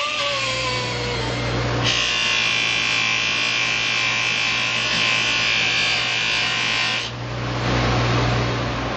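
Electric shop power tools running with a steady motor hum. A harsher, hissing stretch starts and stops abruptly, about two seconds in and about seven seconds in.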